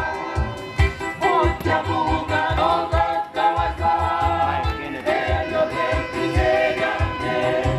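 Music: a group of voices singing together over a steady low drumbeat.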